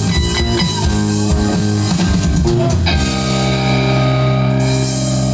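Rock band playing electric guitar, bass and drums, then holding one ringing chord from about three seconds in.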